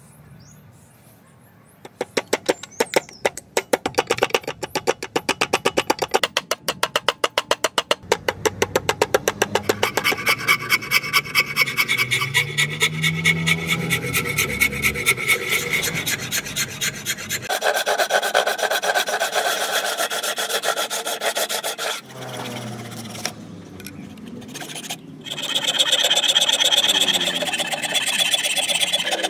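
Hand file and coarse rasp scraping back and forth over a padauk hardwood axe-handle blank clamped in a vise: quick, rhythmic filing strokes starting about two seconds in, becoming a denser, more continuous rasping later on.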